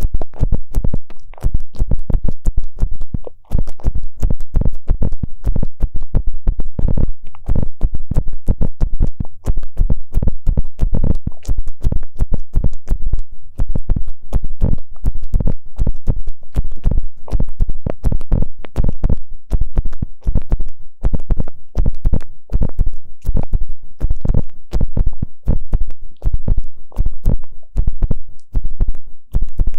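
Ear pick scraping and rubbing close against an ASMR microphone's ear, in rapid scratchy strokes several times a second.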